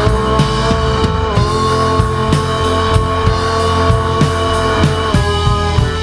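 Rock band recording: a drum kit keeping a steady beat under long held guitar notes. About five seconds in, the guitars change to a busier figure.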